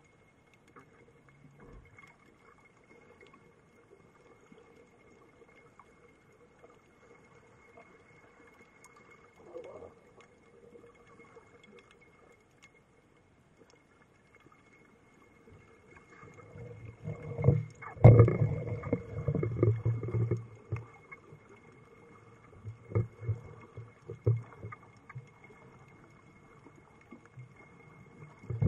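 Underwater sound heard through a camera's waterproof housing: a faint steady hum with a thin high whine. About halfway through comes a loud stretch of low rumbling, knocks and water noise lasting a few seconds, followed by a few shorter thumps.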